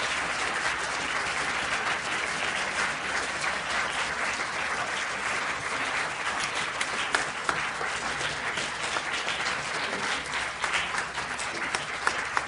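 A large audience applauding steadily, with the clapping thinning into more separate claps near the end.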